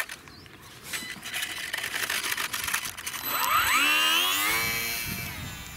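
Electric motor and propeller of a small RC park-flyer plane revving up: a whine that climbs steeply in pitch about three seconds in, holds, then slowly fades.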